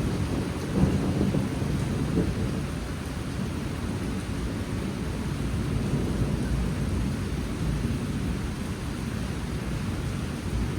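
Monsoon rain falling steadily, with a deep low rumble running under the rain hiss and a couple of slightly louder gusts about one and two seconds in.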